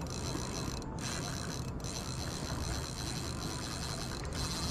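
Fishing reel ticking rapidly and steadily while a hooked fish pulls on the bent rod.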